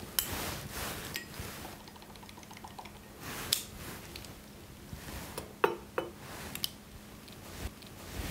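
Scattered small clicks and taps of hands handling a handheld refractometer and a plastic pipette while a drop of kombucha is put on the prism, with a faint steady hum under them.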